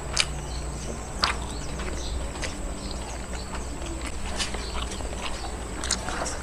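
Mouth sounds of eating: chewing, with a few sharp lip-smacking clicks.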